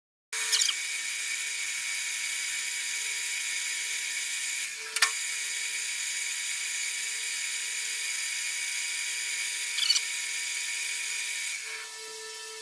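A metalworking machine running with a steady high-pitched whine while drilling and boring a hole in a plate, with three sharp clicks about five seconds apart.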